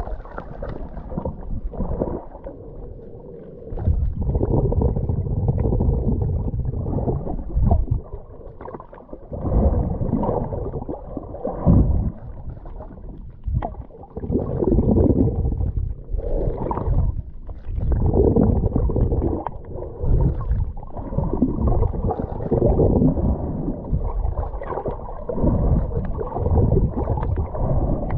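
Muffled, deep rush and slosh of sea water, swelling and dropping in irregular surges every few seconds.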